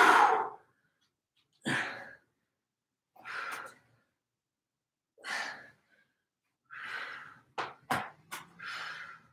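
A man breathing hard through a forearm plank with hip dips: a forceful breath every one and a half to two seconds, and a cluster of a few short, sharp sounds near the end.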